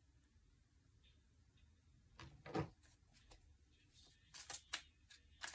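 Tarot deck being overhand-shuffled by hand: one low knock about two seconds in, then from about four seconds quick clicks and slaps of cards, several a second.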